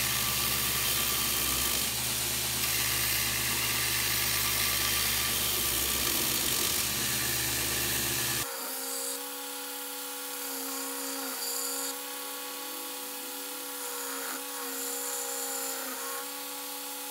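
Belt grinder, driven by a treadmill motor, running with a hardwood board pressed against the moving abrasive belt, sanding a curved profile. About eight seconds in, the low rumble drops away abruptly, leaving a steadier whine.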